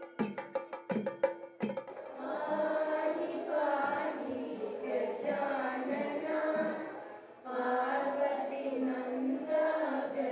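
A group of children singing together in unison, phrase after phrase with a short breath pause partway through. It opens with a run of about six quick percussion strikes with a ringing tone, which stop about two seconds in as the singing starts.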